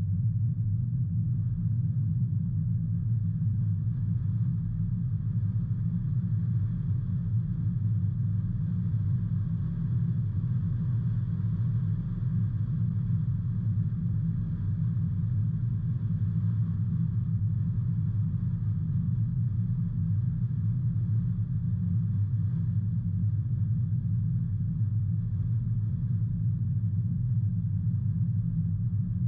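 A car driving on a road: a steady low rumble of engine and tyre noise that stays unchanged throughout.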